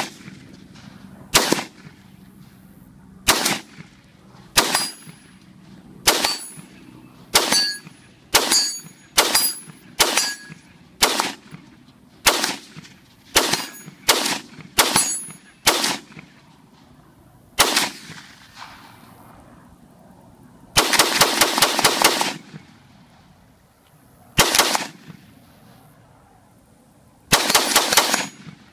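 5.56 AR-15 rifle firing: about fifteen single shots a second or two apart, then two quick strings of rapid fire with a lone shot between them.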